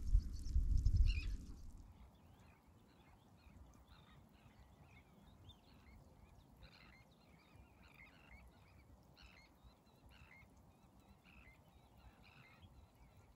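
Low rumbling wind on the microphone for under two seconds, then faint calls of distant birds, a scattered series of short calls over quiet.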